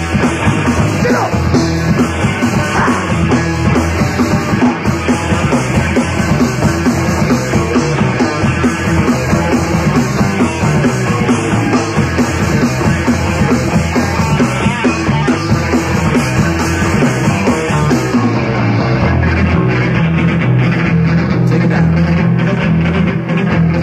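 Punk rock band playing an instrumental passage with no singing. About three-quarters of the way through, the top end drops away and the sound thins to a sparser, rhythmic low part.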